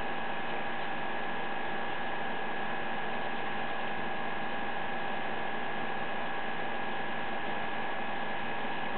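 Air conditioner running: a steady hum and hiss with a constant high whine.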